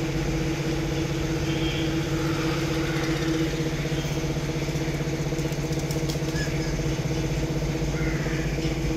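Steady hum of a running motor, holding one pitch with no change in speed.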